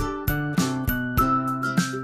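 Background music with a steady beat, notes struck about three times a second.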